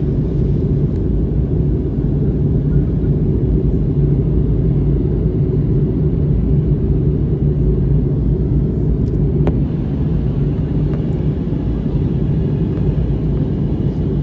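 Steady low rumble of a jet airliner's engines and airflow heard inside the passenger cabin in flight, with a low steady drone underneath.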